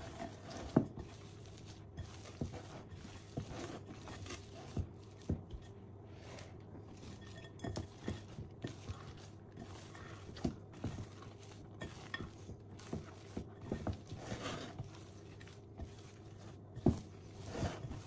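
Hands kneading sticky yeast dough in a glass bowl: irregular squelches and knocks of the dough and hands against the glass, the sharpest about a second in and near the end.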